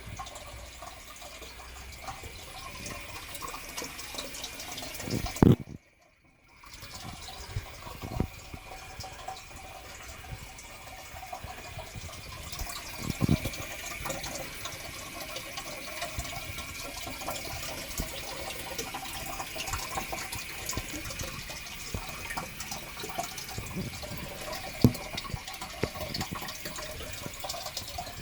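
Domestic boiler making a steady rushing noise like flowing water, with a thin steady high whine over it. A few sharp knocks stand out, and the sound cuts out for under a second about six seconds in.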